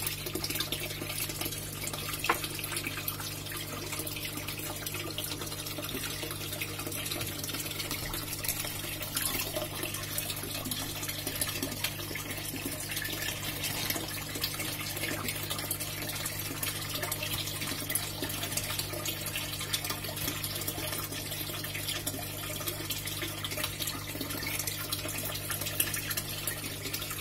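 Aquarium aeration running: steady bubbling and trickling water over a constant low pump hum.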